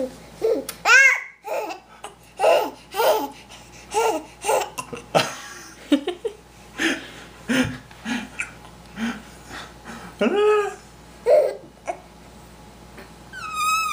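Baby laughing over and over in short bursts, about two a second. Near the end comes one long, high, wavering whine.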